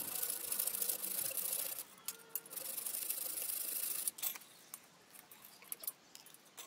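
Hacksaw rasping back and forth through an old rusted bolt in a cast iron bench frame, in two spells of sawing with a short pause between. From about four seconds in the sawing stops, leaving a few light clicks and taps as the saw is put down and pliers picked up.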